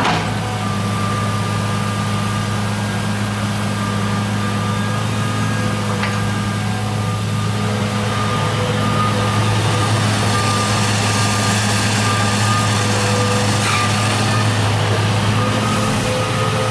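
John Deere 200 excavator's diesel engine running steadily as the machine digs and swings its loaded boom, with a steady low hum and higher tones over it, a little louder about halfway through.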